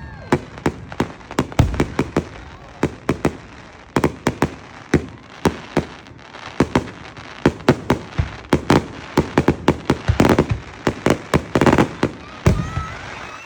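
Fireworks exploding in quick, irregular succession: dozens of sharp bangs and pops, thickening into a dense flurry near the end.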